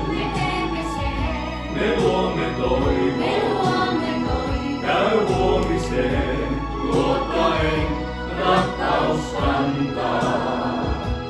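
Music with a group of voices singing together, over scattered percussion hits.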